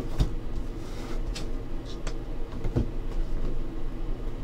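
Sealed cardboard trading card boxes being handled and shifted on a table: a few soft knocks and scrapes over a steady low hum.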